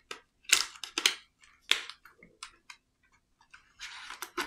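Gel pens and their plastic packaging being handled: a string of sharp, irregular plastic clicks and taps, with a short rustle near the end.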